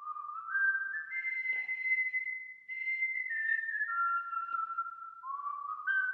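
Someone whistling a tune, starting abruptly. The notes climb step by step to a high held pitch, fall back down over the middle, and start climbing again near the end.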